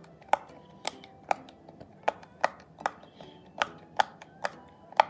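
Background music with a sparse beat of sharp clicks, falling in groups of three about every second and a half, over faint held notes.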